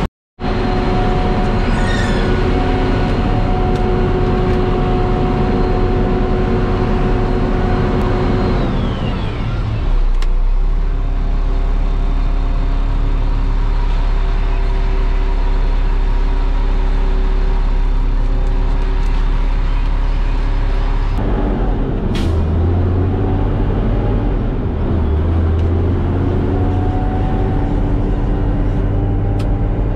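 Kenworth cement mixer truck's diesel engine running steadily, its pitch falling about nine seconds in, changing again about twenty seconds in, and climbing toward the end.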